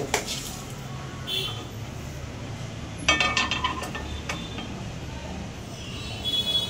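Metal cookware knocking and clinking as an iron tava and a pot are handled on a gas stove: a sharp knock at the start, a ringing metallic clatter about three seconds in, and a ringing clink near the end, over a steady low hum.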